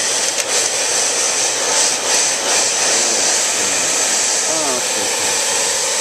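Handheld hair dryer running steadily, its airflow blowing dust out of an open desktop computer case.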